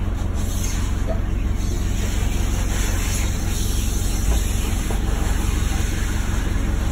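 A boat engine running steadily at low speed, a dense low thrum.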